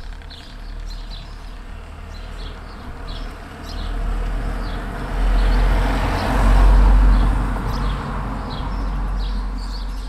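A motor vehicle passing by: a low rumble that builds to a peak about six to seven seconds in and then fades. Small birds chirp throughout.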